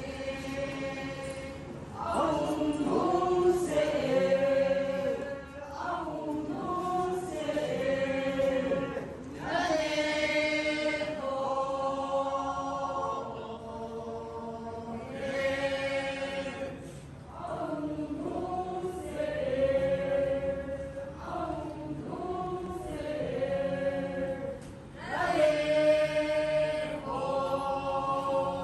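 A group of voices singing a chant together, unaccompanied. The singing comes in held phrases of a couple of seconds each, with short breaks between them.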